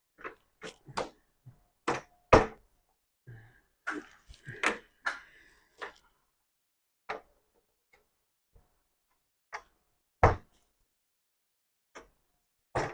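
Irregular knocks and clunks as a molded plastic rack shelf is wiggled and knocked down over its support poles, with single hard clunks about two seconds in and again about ten seconds in, and a short cluster of rattling knocks around four to five seconds in.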